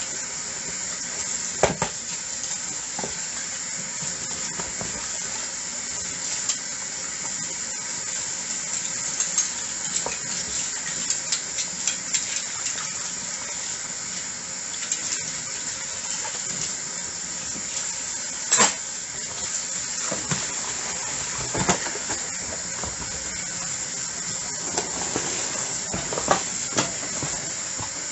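Dishes being washed by hand under running tap water: a steady hiss of water with scattered clinks and knocks of dishes and utensils, the sharpest a couple of seconds in and again past the middle.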